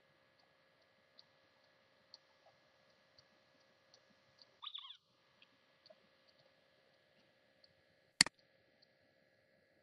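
A computer mouse button clicked once, sharp and loud, about eight seconds in, over a faint steady hum and scattered soft ticks. A brief high chirp sounds about halfway through.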